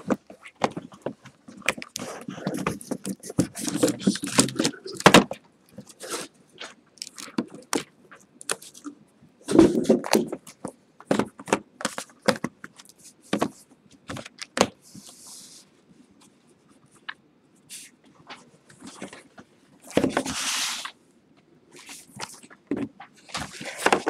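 Cardboard scraping and rustling as a shipping case is opened and card boxes are slid out of it, with short knocks and taps at irregular intervals.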